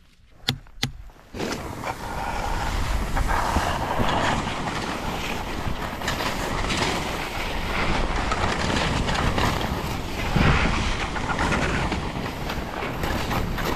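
Skis sliding over snow with wind rushing on the microphone, a continuous rough noise that begins after two sharp clicks about half a second in.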